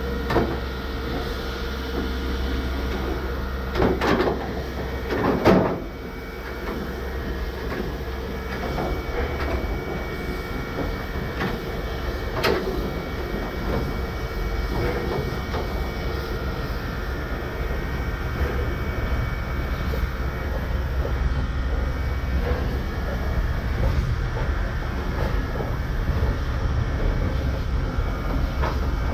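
Heritage train running slowly along the track, a steady low rumble with a faint steady tone over it. There are a few separate knocks or clanks, about four, five and a half and twelve seconds in.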